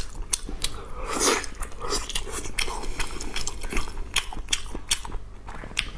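Close-miked wet chewing and lip-smacking of blood sausage, with many sharp mouth clicks and a louder wet burst about a second in.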